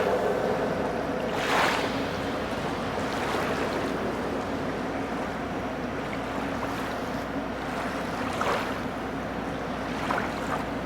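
Swimming-pool water sloshing and splashing as someone swims and dives, over a steady hiss, with a few brief louder splashes about a second and a half in and again near the end.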